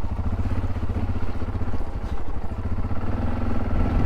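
Yamaha XT660Z Ténéré's single-cylinder four-stroke engine running steadily at low revs, with a fine even pulsing.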